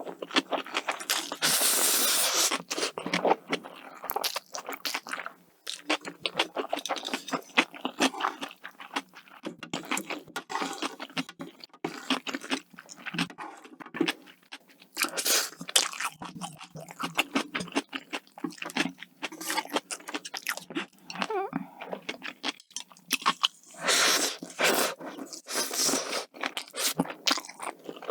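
Close-miked eating: chewing with many crisp crunches and small mouth clicks. There are two longer rushes of noise, each about two seconds, one near the start and one near the end.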